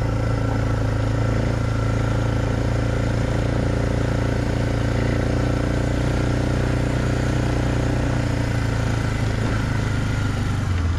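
Diesel tractor engine running steadily under working throttle, its pitch changing slightly near the end.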